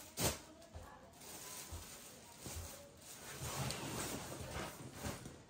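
A single sharp knock just after the start, then a few seconds of rustling and shuffling as things are handled.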